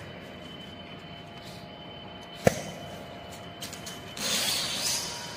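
Bench-top automated test machine running with a faint steady hum, giving one sharp clack about two and a half seconds in. Near the end comes a hiss lasting just under a second.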